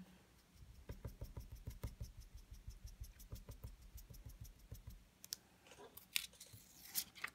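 Ink-blending tool dabbing Distress Ink through a paper mask onto cardstock in rapid, repeated soft strokes for about five seconds, then a few sharper paper rustles as the mask is lifted off the card.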